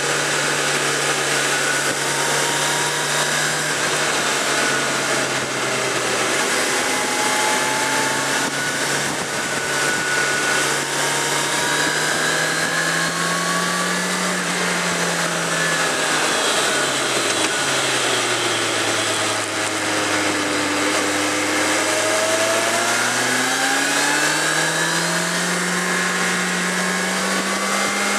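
Suzuki GSX650F's inline-four engine running at steady riding revs over wind and road noise; the note climbs about halfway through, sinks lower a few seconds later, then climbs again near the end as the bike picks up speed.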